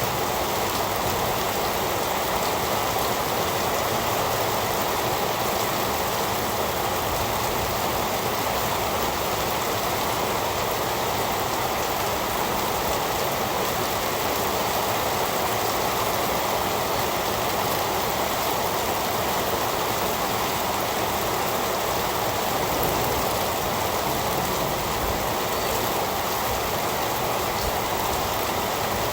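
Heavy rain falling, a steady even hiss that holds constant throughout.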